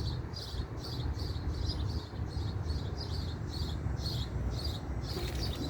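Evenly repeating high-pitched chirps, about three to four a second, from a small animal such as a bird or a cricket, over a steady low rumble.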